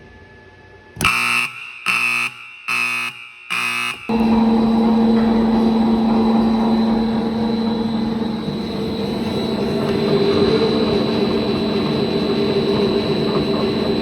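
Four short buzzer blasts, then the motor of an AMF Glen industrial dough mixer starts about four seconds in and runs steadily with a strong low hum.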